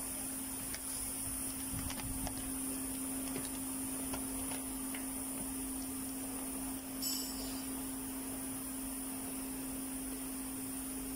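Doypack packing machine running, a steady electrical hum with a few faint clicks and one brief sharp sound about seven seconds in.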